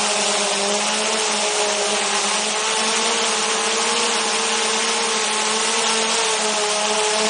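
DJI Mavic 2 Zoom quadcopter's propellers and motors running steadily in flight, heard close from a camera slung beneath the drone: a constant buzzing hum with a pitch that wavers slightly, under a rushing hiss.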